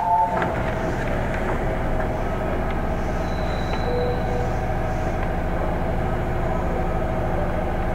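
Inside a JR East 205-series 3100 electric commuter car standing at a station: a steady low hum and rumble with a few faint clicks.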